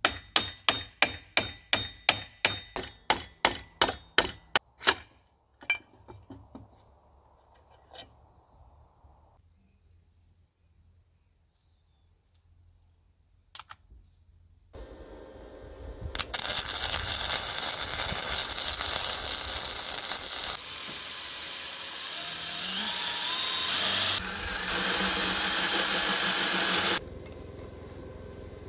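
Hammer blows on a steel centrifugal clutch, about three ringing metal strikes a second, for the first five seconds. After scattered small clicks, a long, loud, steady whirring noise starts about fifteen seconds in, its pitch climbing in places, and stops abruptly near the end.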